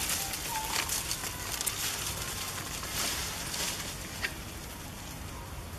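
Long-tailed macaques scuffling and rolling in grass and dry leaves: a busy rustling and scratching with many small sharp crackles.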